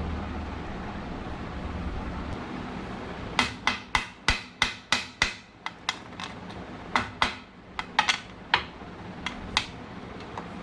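Series of sharp taps and clicks of small hard objects on a hard work surface, as in handling tools and smartwatch parts during repair. They come in irregular runs of quick strikes, about twenty in all, starting about three seconds in, over a low steady hum.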